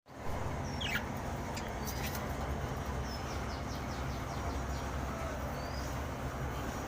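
Budgerigars giving a few short, high chirps, including a quick run of falling chirps partway through, with a few soft clicks, over a steady low rumble.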